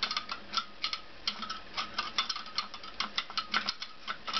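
Small steel clutch parts of a Honda CX500 (springs, plates, bolts) clicking and clinking against each other and the clutch basket as they are handled and fitted. Quick, uneven light clicks, several a second.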